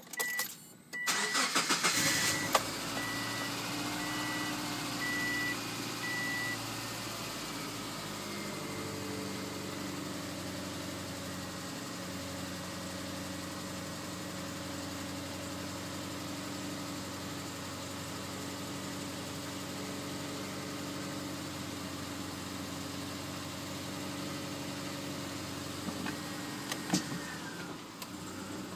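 A 2004 Subaru Forester XS's flat-four engine is cranked and catches within about a second, then settles into a steady cold-start idle that is rough and loud. The uploader traced the roughness to the #3 spark plug misfiring because oil had leaked into its spark plug well. A dashed electronic chime beeps for the first few seconds, and there are a few light clicks near the end.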